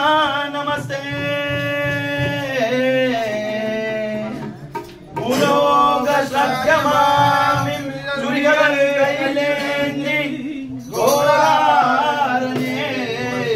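A man's voice singing a Hindu devotional song to Lord Ayyappa, in long held phrases with short breaks about four and a half seconds in and near eleven seconds.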